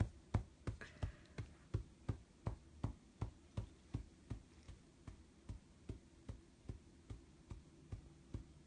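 A small dog's tail wagging against the bedding, a steady run of soft thumps about three a second.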